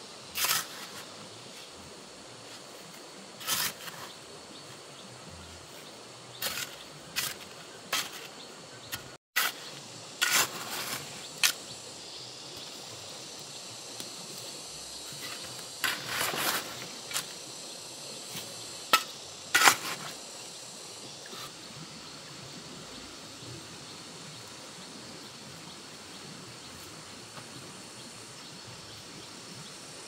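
Rural outdoor ambience with a steady insect hum, broken by about a dozen short, sharp clicks and knocks of hand work in the first twenty seconds, the loudest near the end of that stretch; the last third is the insect hum alone.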